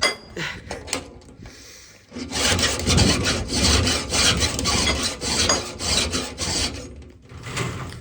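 Hand file stroking across saw teeth during sharpening: a few short strokes, then a dense run of filing from about two seconds in, with a brief break and one more stroke near the end.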